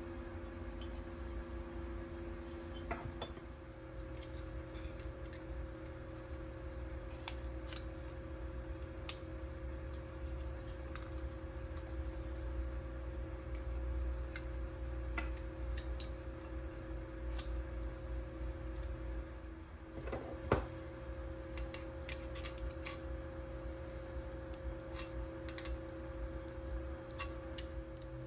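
Steady low hum of running equipment, with scattered light clicks and snips as small metal parts and hand tools are handled.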